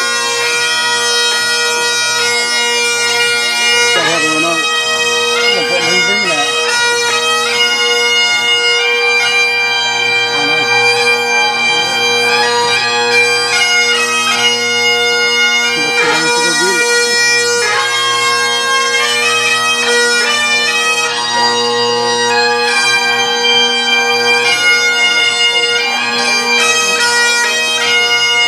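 Great Highland bagpipe playing a melody on the chanter over its steady drones.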